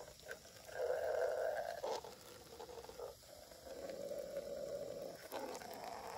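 A stream of squirted water drumming on upturned plastic Tupperware tubs, a steady spattering that comes in stretches of a second or two as the stream moves from one container to the next, loudest about a second in.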